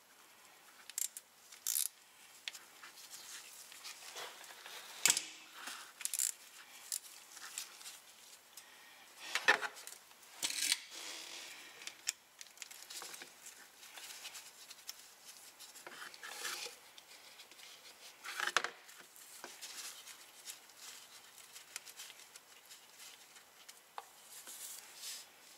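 Wrench and gloved hands working the plug on a Porsche Macan transfer case: scattered metal clicks and scrapes, with louder clanks about 5, 10 and 18 seconds in.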